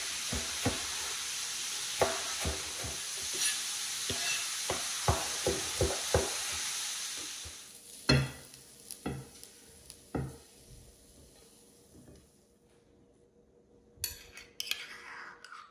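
A chef's knife chopping fresh dill on a plastic cutting board: about a dozen sharp knocks over a steady hiss. Just after the hiss stops comes a heavier knock and a few lighter clatters as fried chicken liver is tipped from a frying pan with a spatula. Near the end a metal spoon scrapes mayonnaise from a small metal cup, one scrape falling in pitch.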